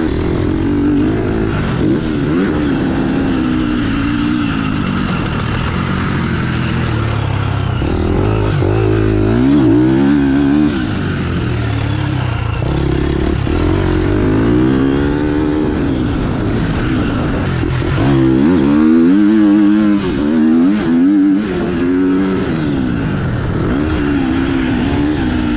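KTM SX-F four-stroke motocross bike, running a JD Racing aftermarket ECU map, ridden hard on track. The engine pitch climbs and drops over and over as the rider opens and shuts the throttle and shifts gears.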